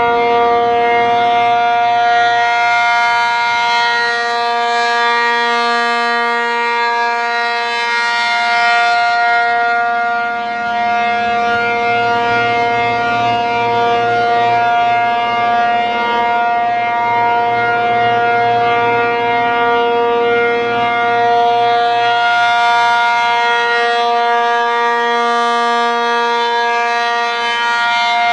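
American Signal Corporation RM-135/T-135 AC outdoor warning siren sounding its steady full-alert tone: a held chord of several pitches that does not rise or fall. It swells and fades slowly as the rotating head sweeps past.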